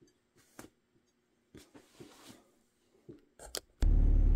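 A few faint handling clicks and rustles, then a loud, steady machine hum starts abruptly near the end.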